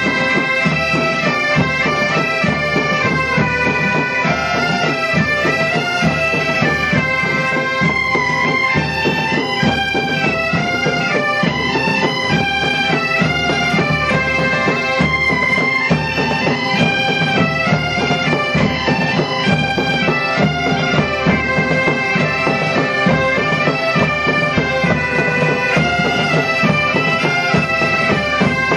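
A large ensemble of Galician bagpipes (gaitas) playing a tune together, the chanters' melody moving over a steady drone.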